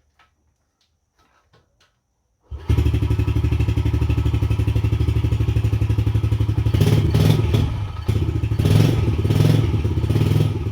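Yamaha TT-R110E's 110 cc air-cooled four-stroke single-cylinder engine starting abruptly about two and a half seconds in, after a few faint clicks, and running with a fast, even pulse; in the second half it swells louder a few times as the throttle is blipped. This is its first start after reassembly with a new air filter.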